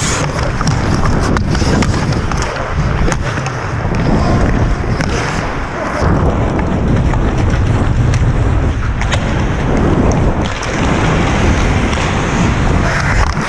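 Ice hockey skates scraping and carving the ice as the wearer skates, with heavy wind rumble on a helmet-mounted camera and a few sharp clicks of sticks and puck.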